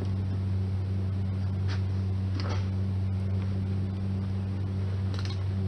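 Steady low electrical hum of an idling welding machine, with a few faint light scrapes or taps on the muffler.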